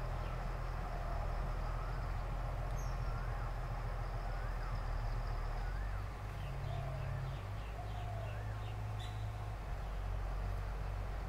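Birds calling over a steady low rumble. A whistled note that rises and falls repeats about every second or so, and short high chirps come in the second half.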